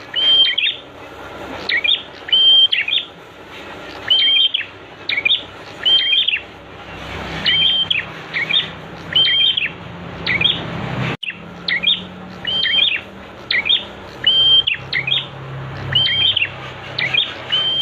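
Prinia (prenjak) song from a tutor recording: short, sharp chirping phrases repeated over and over, about one to two a second. Beneath them runs a steady hiss of flowing water, and the sound drops out for an instant about eleven seconds in.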